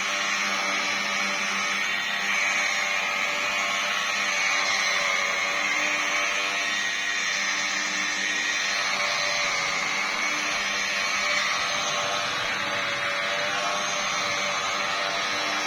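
Electric car polisher running steadily with a whining motor, its pad buffing the painted hood during the second compounding step.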